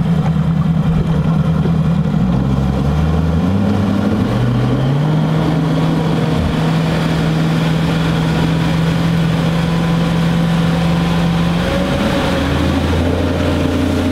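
Mercury Pro XS 200 V8 four-stroke outboard on a bass boat, throttled up from about 1,000 to over 3,000 RPM during its break-in hour, kept below the 3,500 RPM limit. Its pitch climbs about three to five seconds in, then holds steady at the higher speed.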